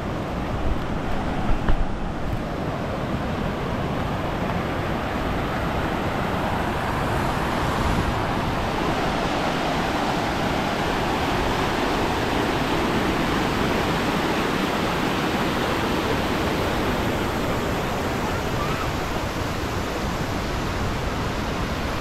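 Waterfall's rushing water, a steady, even noise. A couple of brief knocks sound about a second or two in.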